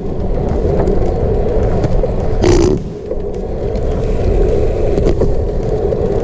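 Gravel bike tyres rolling on asphalt with a steady hum, over low wind rumble on the microphone. A brief hiss comes about two and a half seconds in.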